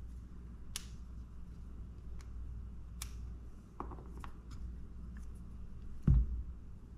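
Light scattered clicks and taps from a precision screwdriver and small parts of a baitcasting reel being handled, with a dull thump about six seconds in, over a steady low hum.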